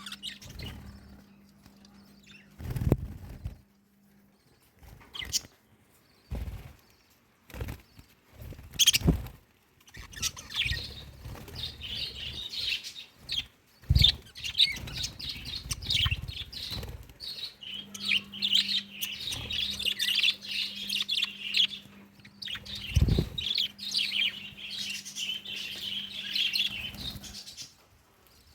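Budgerigars chattering and chirping, busier and denser from about ten seconds in, with sharp knocks every few seconds.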